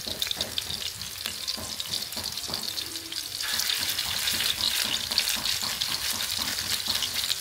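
Spoonfuls of minced-meat patty mixture frying in hot fat in a pan: a steady sizzle that grows louder about three and a half seconds in, with light ticks and taps of a spoon.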